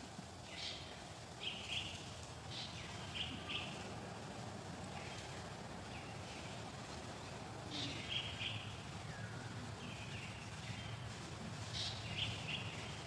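Birds chirping outdoors: short high chirps in clusters of two or three, repeating every second or so with a gap partway through, over a steady background hiss.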